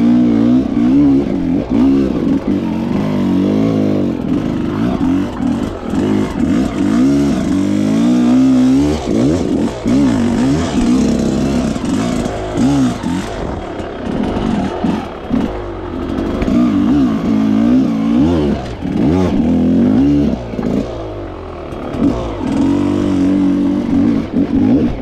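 Dirt bike engine revving, its pitch climbing and dropping over and over as the throttle is worked on and off.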